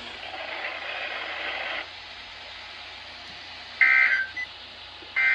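NOAA Weather Radio SAME end-of-message data bursts: short, buzzy two-tone digital chirps, one nearly four seconds in and another just before the end, about a second and a half apart. They mark the end of the weekly test broadcast. Before them there is a stretch of radio hiss.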